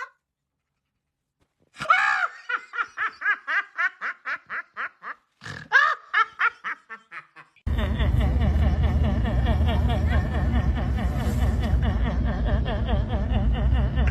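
A person laughing in a quick run of ha-ha pulses, about four or five a second, starting about two seconds in. From about halfway through, a denser and harsher laugh takes over with a heavy low rumble underneath.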